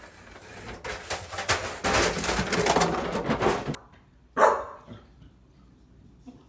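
A paper gift bag rustling and crinkling as a cat scrambles with it, stopping abruptly just before four seconds in. Then a puppy gives one short bark, the loudest sound.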